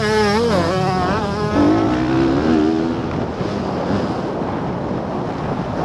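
Motocross bike engine heard onboard, revving up and down with the throttle, then holding a steadier lower note; after about three seconds the engine note sinks under a rushing noise.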